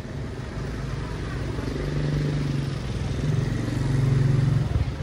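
An engine running with a steady low drone, which swells louder between about three and four and a half seconds in, then drops away.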